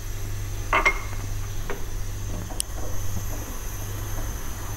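Black plastic spoon stirring thick soup in a pan, with a few light scrapes and clinks against the pan, the clearest about a second in.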